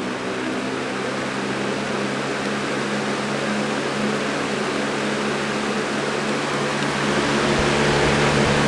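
Lasko 3733 20-inch box fan running on medium speed: a steady rush of air over a low motor hum, growing gradually louder as it comes up to speed.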